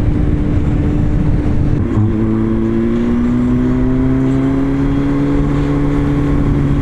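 Honda CBR sport bike's inline-four engine running on the road. About two seconds in, the pitch drops as it changes up a gear, then it slowly rises as the bike pulls in the new gear. Wind rushes over the microphone throughout.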